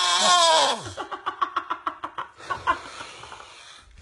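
A loud snore that swells and falls in pitch, ending about a second in. It is followed by a quick run of laughter of about eight pulses a second, then a breathy hiss.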